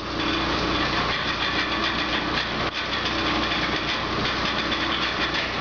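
Old belt-driven metal-cutting machine tool running off overhead line shafting: a steady mechanical noise with a hiss and faint steady hum.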